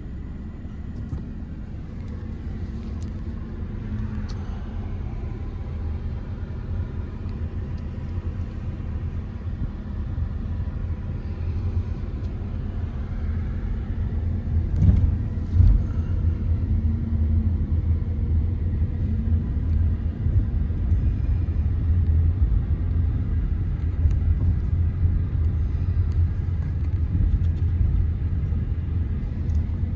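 A vehicle driving: a steady low road and engine rumble that grows gradually louder, with a couple of brief bumps about halfway through.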